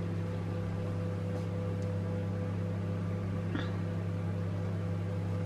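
Steady low electrical hum, with one brief faint rising sound about three and a half seconds in.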